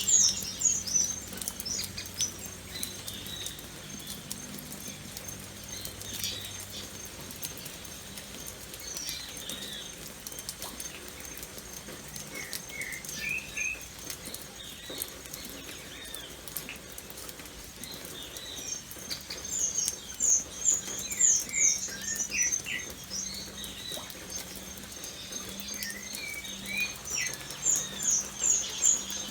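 Steady light rain pattering, with birds chirping over it. Quick runs of high chirps come near the start, about two-thirds of the way in and again near the end, with scattered lower chirps in between.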